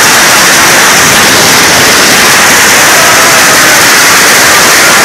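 Marble-sized hail hitting a bare tin roof stripped of its fiberglass insulation: a dense, steady, crazy loud noise of countless impacts, close to overloading the phone's microphone.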